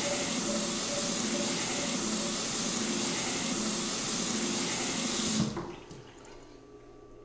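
A bathroom sink faucet runs steadily as hands are washed under it, then stops suddenly about five and a half seconds in.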